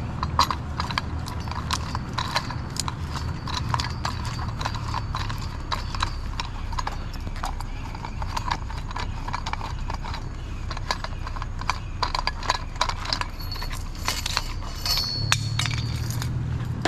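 Irregular clicking and clattering, with a steady low rumble underneath that grows stronger near the end.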